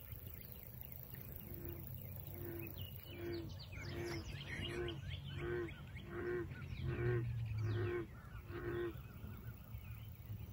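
An animal call repeated about ten times in an even series, a little over one call a second, each call a short pitched note. Small birds chirp through it over a steady low rumble.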